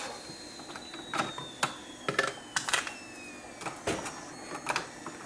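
Scattered plastic clicks and knocks from a Bosch Tassimo coffee maker as its lid is lifted and the coffee pods are handled, with a faint high tone gliding slowly down in pitch over the first few seconds.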